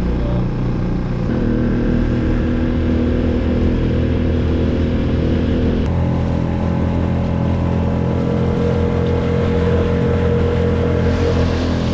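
Skiff's outboard motor running steadily at high speed, with water rushing along the hull; the engine note shifts slightly about halfway through.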